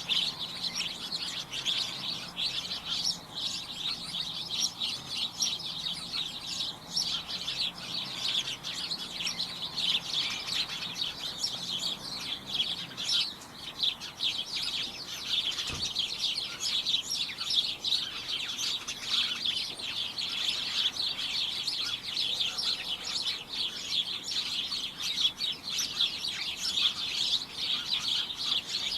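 A flock of small birds chirping over one another in a dense, continuous, cacophonous chatter of short high chirps.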